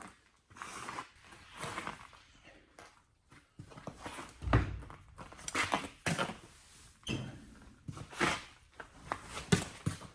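Irregular metal clinks, knocks and scrapes of hand work on a truck wheel rim, a dozen or so separate strokes, the stronger ones from about four seconds in.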